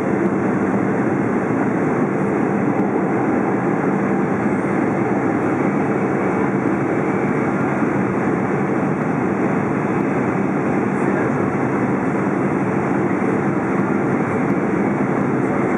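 Steady cabin noise inside a Boeing 777-200 during its approach: an even rush of airflow under the drone of its GE90 turbofan engines, with a couple of low steady hums.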